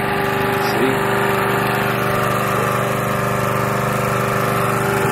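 Portable generator's small engine running steadily at a constant speed, with an even, unchanging drone.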